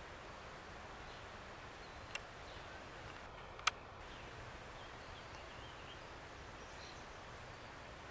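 Quiet woodland ambience: a steady hiss with faint, high bird chirps, broken by two sharp clicks about two and three and a half seconds in, the second one louder.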